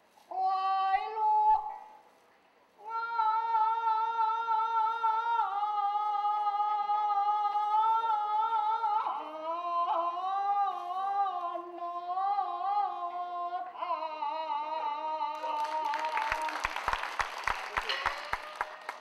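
Peking opera accompaniment: a jinghu fiddle plays a melodic interlude of held, wavering notes with slides, after a short opening phrase. Near the end the gong-and-cymbal percussion comes in with quick, regular strokes.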